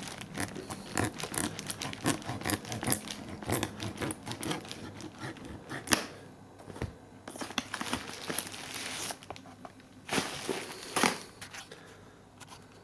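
Plastic wrapping on a cardboard product box being cut with a knife and torn and crinkled off: a run of crackles and rips, a short lull about six seconds in, then more rustling and two louder rips around ten to eleven seconds.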